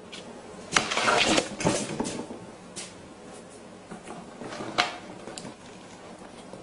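A head of cabbage scraping and bumping across a wooden tabletop as a dog pushes it along with its nose: a loud spell of scraping and leaf rustling about a second in, then softer knocks and a sharp tap a little later.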